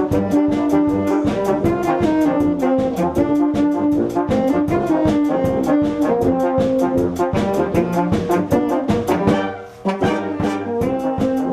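Brass band playing, with trombones and trumpets over a steady beat. About nine and a half seconds in, the band breaks off briefly, then comes back in.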